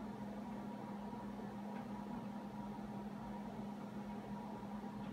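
Steady electrical hum from a running appliance, with a fainter higher tone over an even background hiss; nothing else stands out.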